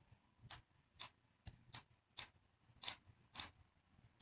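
Computer mouse clicking: about seven short, sharp clicks at irregular intervals, faint.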